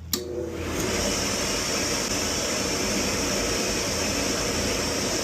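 Power Flame gas burner starting up: a click, then its blower spins up over about a second and runs with a steady rush of air.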